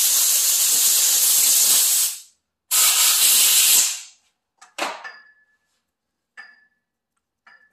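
Compressed-air blow gun blowing dirt off a miter saw's laser guide: a loud hiss of air that stops about two seconds in, a second burst of over a second, then three short puffs, two with a faint whistle.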